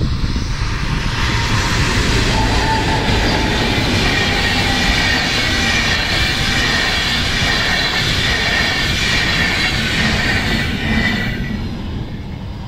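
Pair of DB class 218 diesel-hydraulic locomotives hauling an InterCity train past, then its coaches rolling by with wheels on the rails: a broad rumble with a steady high-pitched whine over it. The noise builds about a second in and fades near the end as the train moves away.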